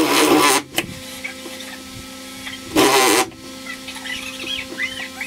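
Cordless drill with a spade bit boring through the boat's plywood in two short bursts, the first at the start and the second about three seconds in. Between the bursts, birds chirp faintly.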